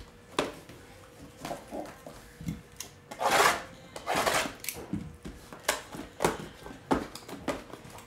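Cardboard trading-card boxes being handled and set down on a table: a string of light knocks and taps, with two longer rustling, sliding sounds about three to four and a half seconds in.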